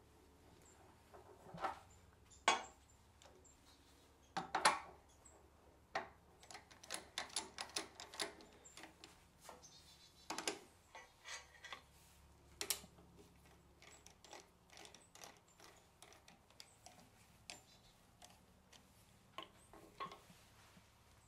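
Clinks and knocks of metal lathe scroll chucks being handled: unthreaded from the lathe spindle, set down on the lathe bed, and a wooden block fitted into a chuck's jaws. The loudest knocks come about two and a half and four and a half seconds in, with a quick run of small clicks from about six to nine seconds in.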